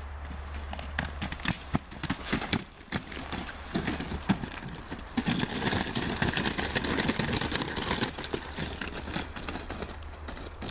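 Irregular footsteps over rubble and rough ground, with rustling of ferns and brush growing denser in the middle, over a steady low hum.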